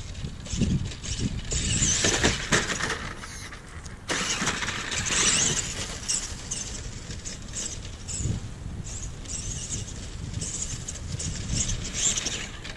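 Tamiya Super Clod Buster RC monster truck driving over grass: its twin Tamiya Super Sport TZ electric motors and gears whine in irregular surges as the throttle is worked.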